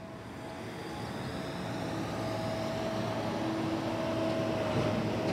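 Large farm tractor's engine running as it approaches, growing steadily louder, with a steady whine over the engine note.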